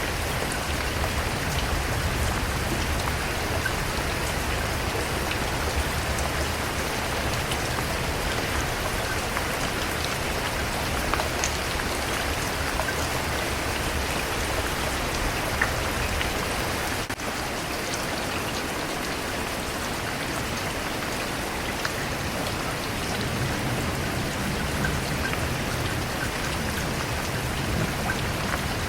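Steady rain falling on a surface, with scattered louder drop hits. The sound dips briefly about two-thirds of the way through.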